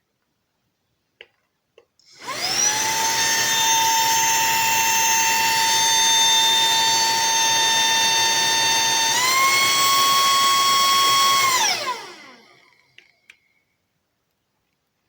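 SERVOMASTER cordless handheld vacuum cleaner switched on: its motor spins up to a steady high whine, steps up in pitch to its second, faster speed about seven seconds later, then is switched off and winds down. A few small clicks come just before it starts.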